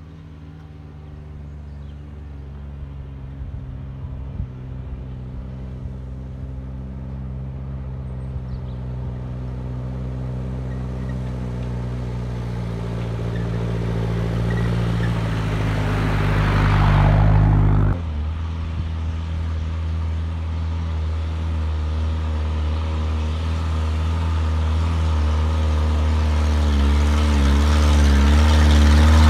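A Toyota off-roader's engine running uphill on a gravel track, growing steadily louder as it comes close, with tyre noise on the gravel as it passes; the sound drops off suddenly about two-thirds of the way through. A Lada Niva's engine then grows louder as it approaches.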